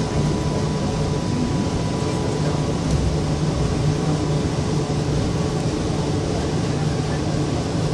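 Cabin noise of an airport people-mover train in motion: a steady rumble with a low hum and a faint, steady high-pitched tone.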